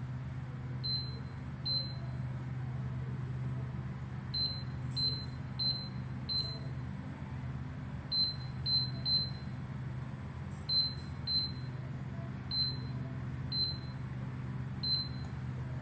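Electronic beeps from an electric instant water heater's control panel, about fourteen short, high beeps singly and in quick runs of two to four, as its buttons are pressed to set it. A steady low hum runs underneath.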